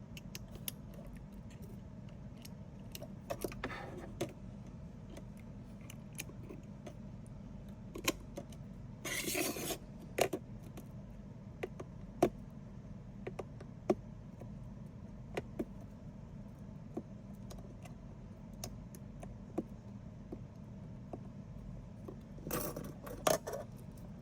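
Small metal tools clicking and tapping against a work surface, with three brief scrapes, over a steady low hum.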